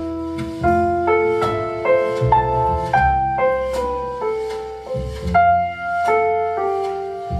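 Recorded piano music over a low bass line, played back through Vandersteen Trio CT loudspeakers and heard in the room, a new note struck every half second or so.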